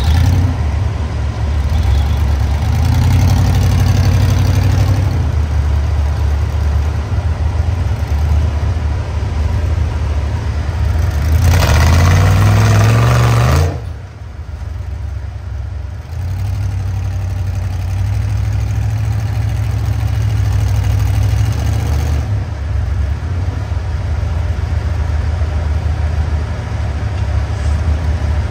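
Off-road vehicle engine running steadily on a trail. About twelve seconds in it revs up, rising in pitch for a couple of seconds, then drops back suddenly to a steady run.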